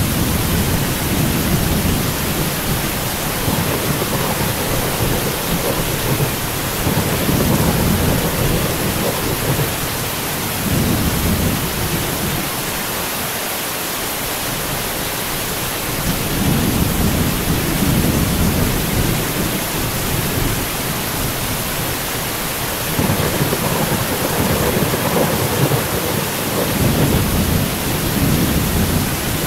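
Steady rain hissing throughout, with long, low thunder rumbles rolling in and out in swells. The thunder lulls for a few seconds near the middle.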